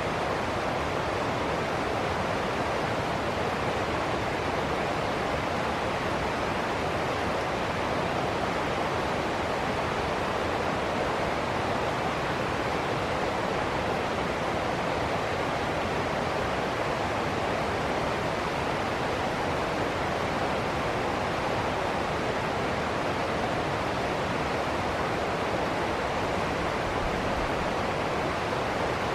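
Ocean surf: a steady, unbroken rush of water noise at an even level, with no single wave breaks standing out.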